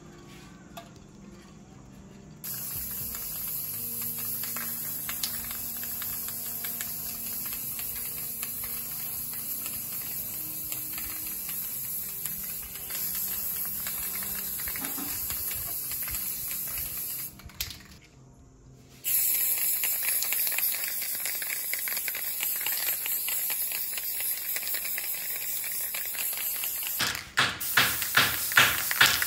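Aerosol spray-paint can hissing in long steady sprays, with a break of about a second and a half partway through. Near the end it changes to quick short spurts, about two a second.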